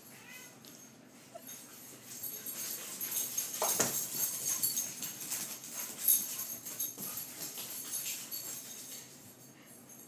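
Dogs scrambling about on a tile floor: many quick clicks of claws on the tiles, with collar tags jingling. It is loudest in the middle few seconds and dies down near the end.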